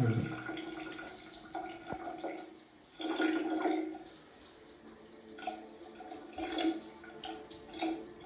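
Shower running: a steady spray of water, with a few brief louder swells.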